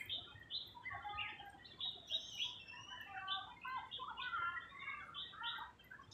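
Many birds chirping and calling at once: a dense chorus of short, overlapping chirps and trills.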